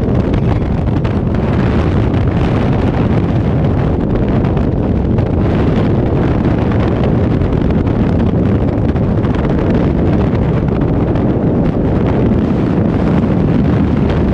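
Freefall wind blasting over a skydiver's camera microphone: a loud, steady, deep rush of noise.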